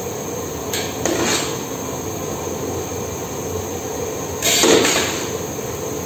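A metal spoon scraping and clinking against the rim and inside of a large aluminium cooking pot as cooked rice is scooped and spread over the biryani masala. There is a brief clink about a second in, and the loudest scrape comes about halfway through.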